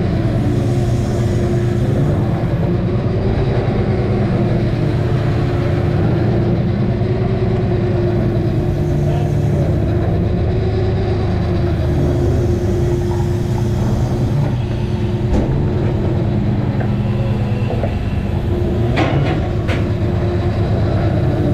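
Crab boat's diesel engine and deck hydraulics running, a steady low drone with a steady hum over it, while the hydraulic block hauls pot line and sea water rushes along the hull. A few sharp knocks near the end.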